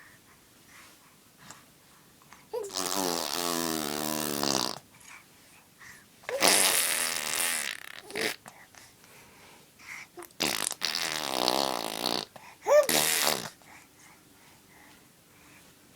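A baby blowing raspberries, making farting noises with her lips in four buzzing bursts; the first and third run about two seconds each, the last is short.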